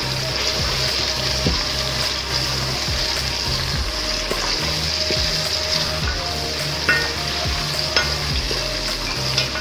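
Onions and freshly added tomatoes sizzling in hot oil in a pan while being stirred, with a spoon clicking against the pan a few times.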